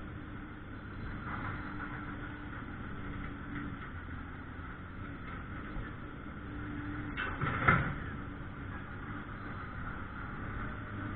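An engine running steadily, with a single sharp metallic clank about three-quarters of the way through.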